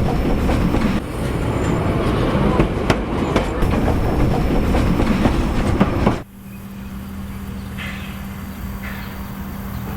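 Vintage train running along the rails, a loud steady rumble with scattered sharp clicks from the wheels. About six seconds in it cuts off suddenly, and a quieter steady hum follows with a few faint short sounds.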